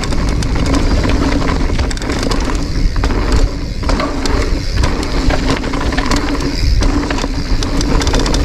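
Giant Reign mountain bike descending a rough downhill trail. The tyres rumble over rock and dirt, with many sharp clicks and rattles from the chain and frame as the bike is shaken.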